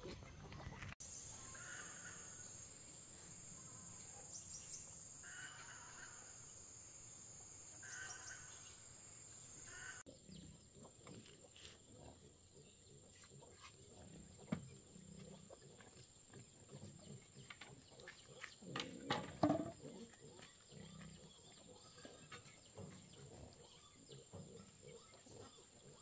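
Pigs grunting and squealing off and on, fairly faint, with the loudest cluster of calls about three-quarters of the way through, over a steady high thin whine in the background.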